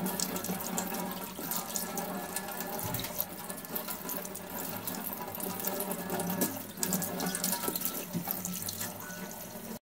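Kitchen tap running into a stainless steel sink, the stream splashing over hands and fish as they are rinsed. It cuts off abruptly near the end.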